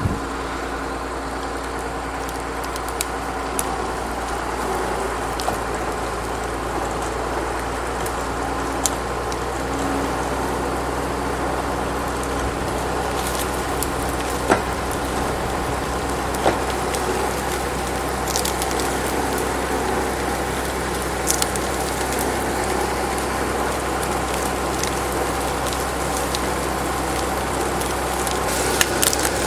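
An engine running steadily at idle, with scattered sharp clicks and cracks over it.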